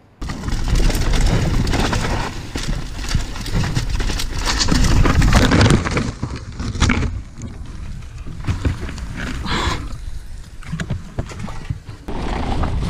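Mountain bike ridden hard over rough ground and then crashing into bushes: a continuous rattle and clatter of the bike and brush, with a burst of thrashing branches and knocks about five to six seconds in as bike and rider go down.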